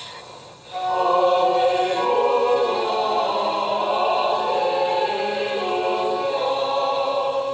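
Church choir singing in long, held chords, coming in about a second in after a brief lull.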